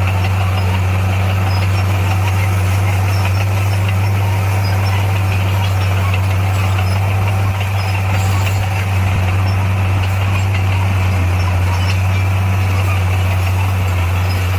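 Diesel engine of heavy earthmoving equipment running steadily, with a deep, even hum that does not rise or fall.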